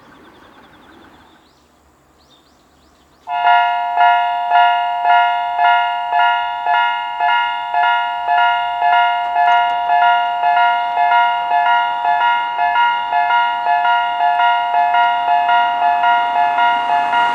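Japanese level-crossing warning bells start about three seconds in and ring steadily, about two strikes a second, the two sides' alarms sounding at slightly different pitches, one lower and one higher. Near the end a rising rush of noise comes in under the bells.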